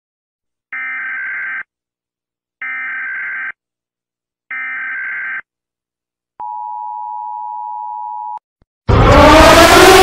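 Three short electronic beeps, then one longer, lower beep, like a countdown. Just before the end a very loud, distorted siren starts and winds up, rising in pitch.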